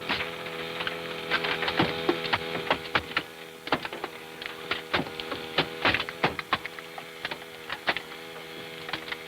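Steady machine hum with many irregular sharp clicks and metallic knocks over it: rescue tools working on a wrecked car's steering wheel.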